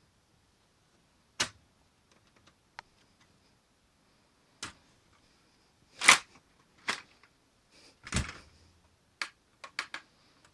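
Sharp plastic clicks and clacks from a Lego-brick pump-action shotgun being handled and worked, about eight separate clicks with pauses between them. The loudest is about six seconds in, and one about eight seconds in carries a duller thud.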